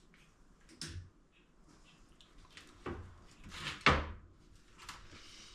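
Several knocks and clunks of motorcycle engine parts being handled and set down on a workbench, the loudest about four seconds in.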